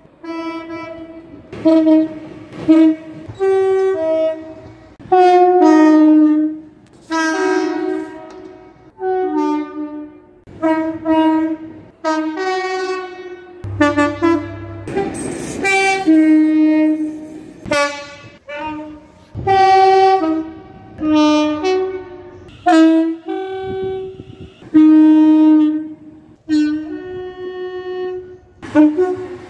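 Train horns sounding in a long run of short and longer blasts, often two notes in turn, a higher then a lower. About halfway through, a brief rush of noise from a passing train sits under the horns.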